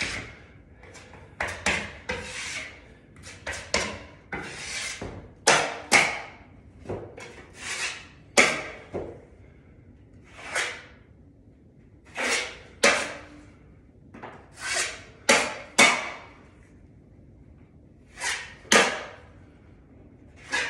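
Drywall knife scraping joint compound along a drywall corner in about twenty quick strokes, often two or three in a row, with short pauses between runs. The compound is going on as a second coat.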